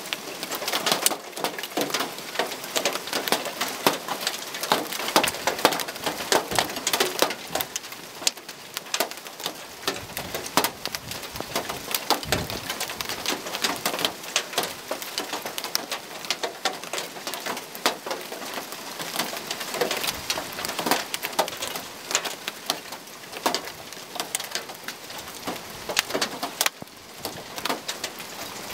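Hailstones up to 2.5 cm across, with heavy rain, pelting clay roof tiles and a garden lawn: a dense, continuous clatter of sharp ticks over a steady hiss of rain.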